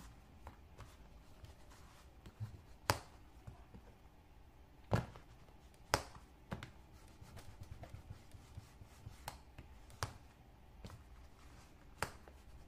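Handling of a leather wallet on a cutting mat: about half a dozen light, separate taps and knocks as it is folded, pressed and set down, with soft handling noise between them.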